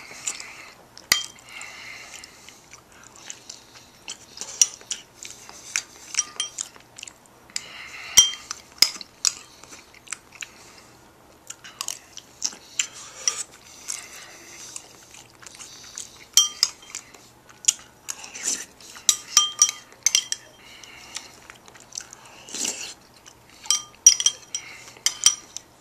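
A fork clinking and scraping against the dish as canned ravioli is eaten, in repeated sharp clinks that come in clusters, with chewing in between.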